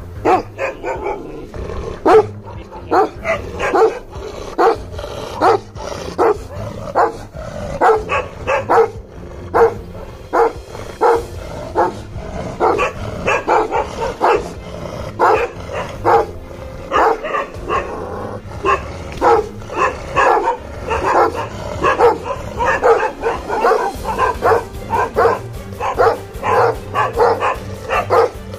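Bhotia (Himalayan sheepdog) barking repeatedly, about two barks a second without a break.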